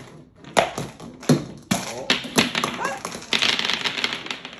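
Small balls spilling out of a plastic surprise egg and bouncing on a table-tennis table: a few separate knocks, then a rapid clatter of many small taps about three seconds in.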